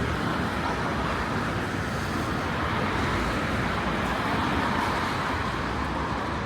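Steady vehicle traffic noise: a continuous rumble and hiss with no separate events standing out.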